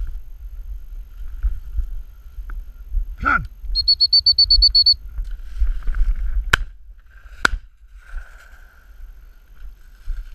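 Two shotgun shots about a second apart, fired at a flushing rooster pheasant. A quick run of high, even beeps comes a couple of seconds before them.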